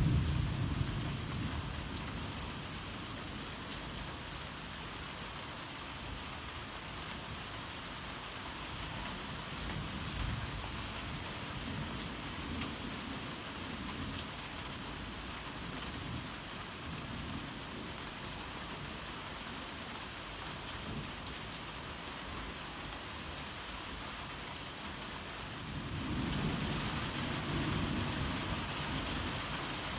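Steady rain hissing, with a roll of thunder dying away in the first couple of seconds. A low rumble swells up near the end.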